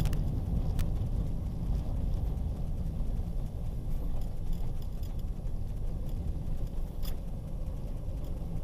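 Car driving along, a steady low rumble of engine and road noise, with a couple of faint short clicks.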